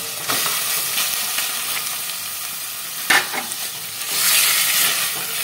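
Raw chicken pieces sizzling in hot oil and ginger-garlic paste in a metal pot while being stirred with a spatula. There is one sharp knock against the pot about three seconds in, and the sizzle grows louder near the end.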